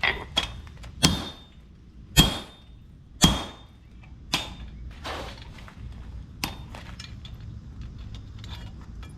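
Hand hammer blows on an anvil while forging an axe head: a run of sharp metallic strikes with a ringing tone, roughly one a second. The loudest two come about two and three seconds in, then lighter, sparser taps.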